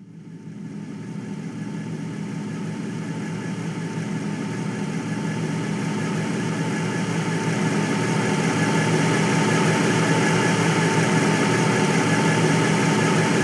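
Car engine sound effect running steadily, fading in from silence and growing gradually louder over the first several seconds before levelling off, as the listening point moves closer to the sound source.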